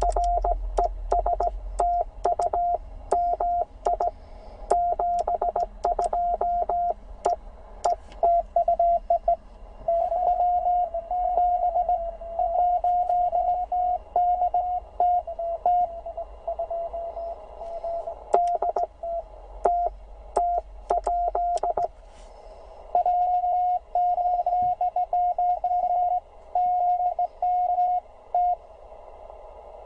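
Morse code (CW) from a Penntek TR45L HF transceiver: a single tone of about 700 Hz keyed on and off in dots and dashes. Sharp clicks come with many of the elements in the first third and again past the middle.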